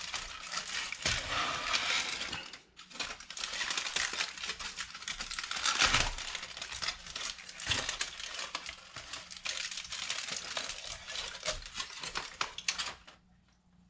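Aluminium foil crinkling and crackling continuously as it is unwrapped from a plastic microwave meal tray. It stops suddenly near the end.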